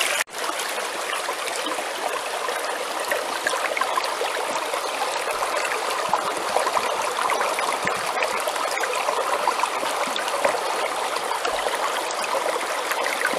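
Shallow stream water rushing and splashing over rocks and through a small metal gold-washing sluice box set in the current. It is steady, with one short gap just after the start.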